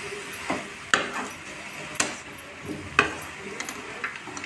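A metal spoon stirring cauliflower florets in a stainless steel pan, scraping and clinking against the pan. The sharper knocks come about once a second.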